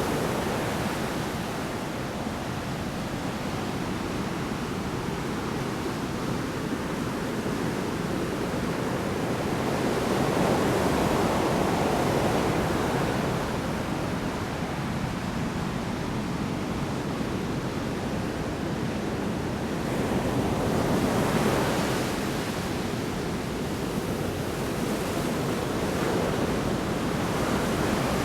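Large storm waves breaking on the shore, a continuous rushing surf that swells as waves crash, about 10 seconds and 21 seconds in.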